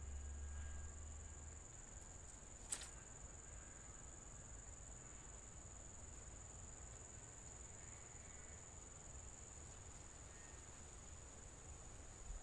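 Faint, steady high-pitched trilling of insects, unbroken throughout, with one sharp click about three seconds in.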